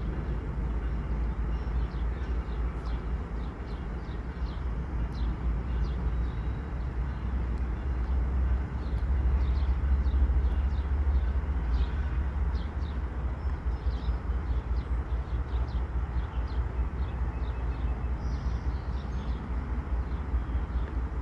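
A low rumble, swelling slightly about ten seconds in, with birds chirping over it again and again.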